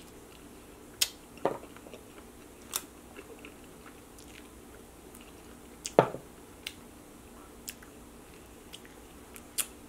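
Close-miked eating of a mango habanero chicken wing: quiet chewing broken by short, sharp, wet mouth clicks and lip smacks, the loudest about a second in and about six seconds in.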